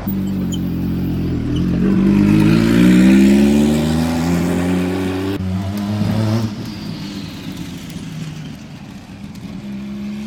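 Bugatti supercar engines driving past. One engine revs up, its note rising steadily for a few seconds. After a cut, the EB110's V12 passes close and pulls away, its note falling and fading.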